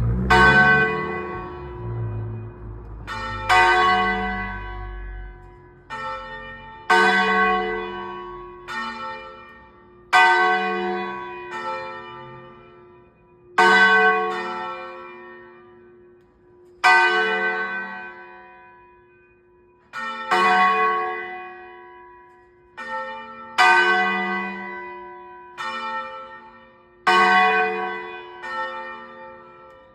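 Church tower bell ringing the noon peal. Strokes come about every one and three-quarter seconds, alternating loud and softer, each left to ring out.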